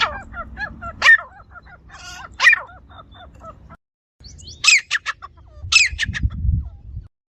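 Grey francolin calling: loud, shrill calls that fall in pitch, some coming in quick runs of three, with softer chirps between. The sound cuts out briefly twice, and there is a low rumble a little after the middle.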